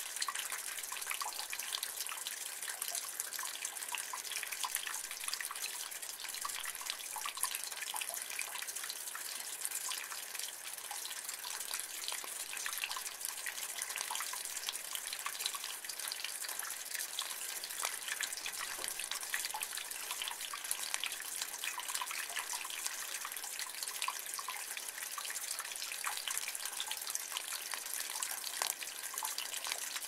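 Rainwater running and dripping in a rain gutter: a steady, dense patter of small drops over a constant trickle.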